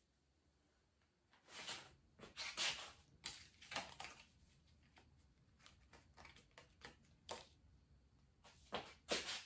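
Faint, irregular rustling and soft knocks of clothing being handled as a dress is put on.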